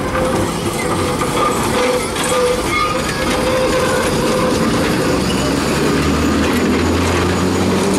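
Vintage electric tram rolling past at close range, its steel wheels rumbling steadily on the rails. A low hum comes in after about five seconds.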